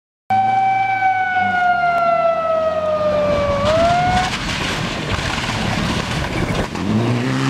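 Mitsubishi rally car engine on a gravel stage. Its high note falls slowly for about three seconds, then rises sharply, before breaking into a rougher, noisier sound as the car comes closer. A lower engine note comes in near the end.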